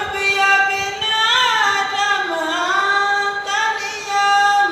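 A man singing unaccompanied in a high voice: long held notes that slide slowly up and down, in the melismatic style of a devotional chant.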